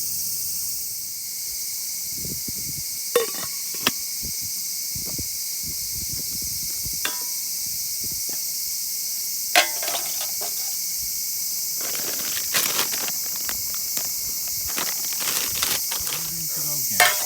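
Night chorus of crickets and other insects, a steady high-pitched chirring throughout. A few sharp clicks and knocks break through it, the loudest about three seconds in, near the middle and near the end.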